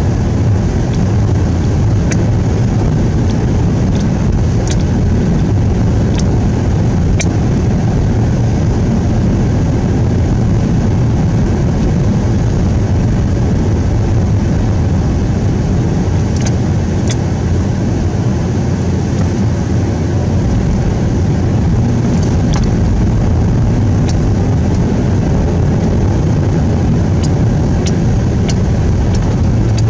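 Vehicle driving on a snow-covered road, heard from inside the cabin: a steady low drone of engine and tyres, with scattered faint clicks and ticks.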